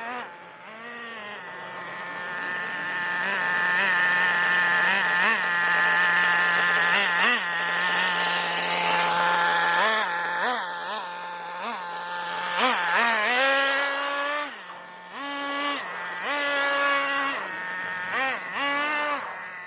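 Small high-revving engine of a Tornado S30 buggy, throttled in quick repeated blips that rise and fall back, with steady stretches between. Partway through it climbs and holds a higher pitch for a second or so before dropping back to more short blips.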